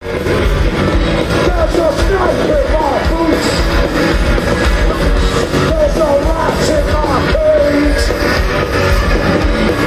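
Live rock band playing loud through a festival PA, heard from out in the crowd, with vocals over heavy bass and drums.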